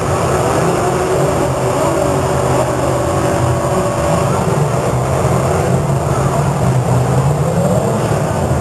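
Several demolition derby cars' engines running and revving together, a dense din with engine pitches rising and falling.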